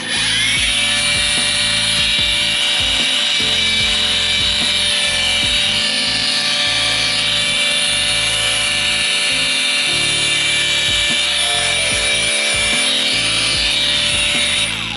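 Worx WU808 20V brushless cordless angle grinder with a wool polishing pad fitted, running free with no load: a loud, steady high-pitched whine that starts suddenly, spins up within a moment, and cuts off near the end.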